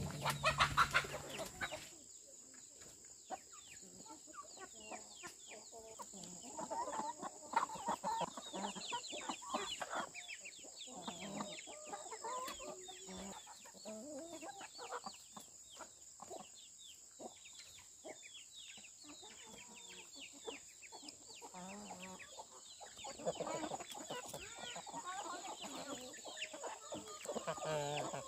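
Chickens clucking in short calls, with scattered sharp clicks and knocks and a steady high-pitched whine in the background.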